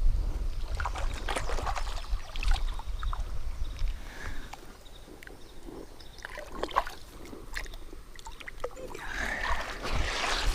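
Scattered knocks and taps on a kayak and its gear, with light water sounds, over a low rumble that eases off about four seconds in.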